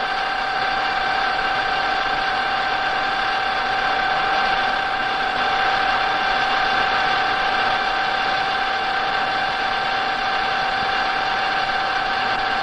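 Colchester lathe fitted with a hydraulic profiling attachment, running while it copy-turns a stepped metal shaft: a steady machine whine with a constant high tone, unchanging throughout.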